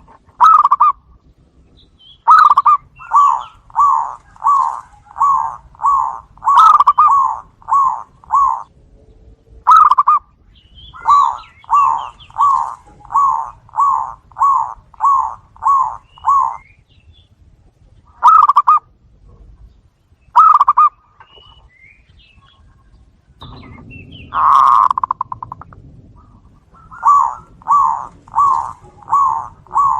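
Zebra doves (perkutut) calling back and forth: runs of about a dozen quick cooing notes, roughly two a second, with pauses between runs. Faint high chirps of another small bird sound over them, and there is one louder, rougher sound about two-thirds of the way through.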